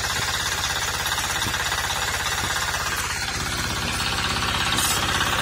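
Single-cylinder 9 HP diesel engine of a walk-behind power tiller running with a steady, rapid knocking beat after a rope start. It grows a little louder near the end.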